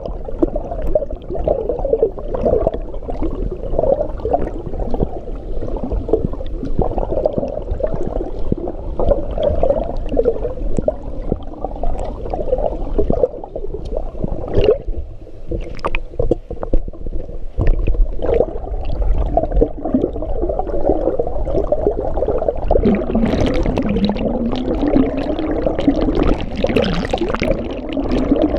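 Muffled underwater sloshing and bubbling of a swimmer's front-crawl strokes and kicks, heard through a camera held under the water. A low wavering sound rising and falling joins in near the end.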